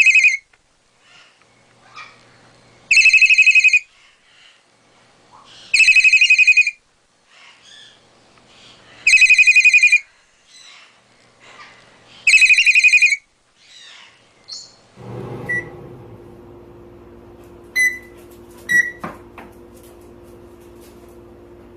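Cockatiel mimicking a cell phone ringtone: five loud trilled ring bursts, each about a second long and about three seconds apart. About fifteen seconds in, a low steady hum begins, with a few short faint chirps over it.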